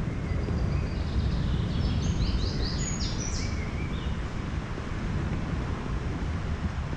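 Outdoor ambience with a steady low rumble, and a bird chirping a quick run of short high notes about two to three seconds in.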